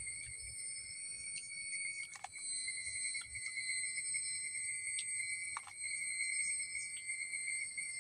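Chorus of insects such as crickets trilling steadily at several high pitches, the lowest with a fine rapid pulse, with a couple of faint clicks.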